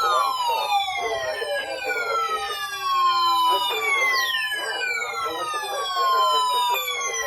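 Several overlapping electronic siren tones, each jumping up in pitch and gliding down, repeating about every three and a half seconds, over a steady tone.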